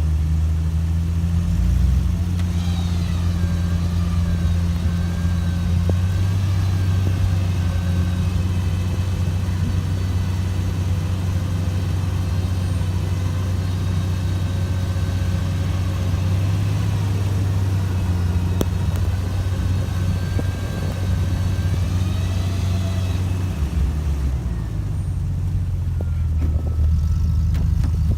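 Electric winch motor whining steadily under load for about twenty seconds while hauling a stuck Jeep back onto the road, over the steady low hum of idling engines. The whine starts a couple of seconds in and stops a few seconds before the end.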